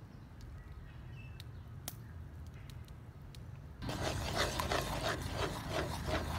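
Faint ticks of a metal spatula as palm sugar is scooped into an aluminium wok, then about four seconds in a loud, rough scraping and sloshing as the spatula stirs and mashes the sugar in water against the wok.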